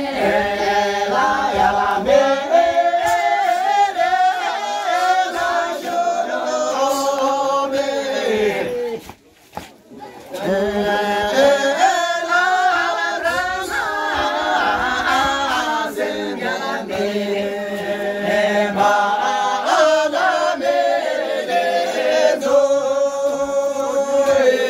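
A group of men singing together unaccompanied, a chant-like song. The singing breaks off for about a second partway through, then starts again, and ends on a long held note.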